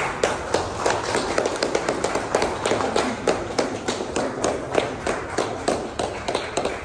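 A small group clapping: sharp, separate hand claps several times a second, kept up steadily as applause.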